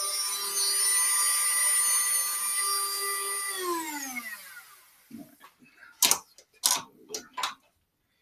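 Handheld rotary tool on a flexible shaft running at a steady high whine, then switched off about three and a half seconds in, its pitch falling as it spins down. A few sharp knocks and clicks follow as the tool is handled.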